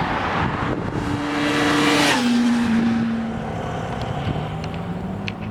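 Kawasaki Z1000's inline-four engine with a Yoshimura exhaust being revved loud: the pitch climbs and holds to a peak about two seconds in, then drops suddenly and sinks slowly back toward idle.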